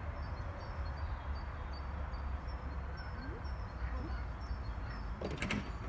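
Outdoor ambience: a steady low rumble with faint, repeated high bird chirps, and a few sharp clicks or knocks near the end.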